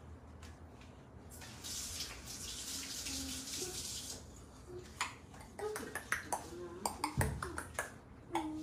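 Kitchen sink tap running, a steady hiss of water for about two and a half seconds until it is shut off, followed by a string of light clicks and knocks.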